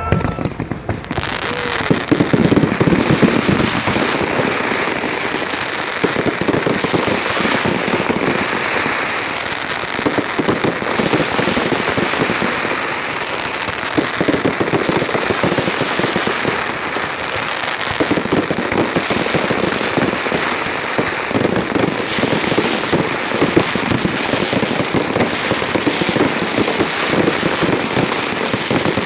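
Fireworks display: a dense, continuous barrage of bangs and crackles, starting about a second in.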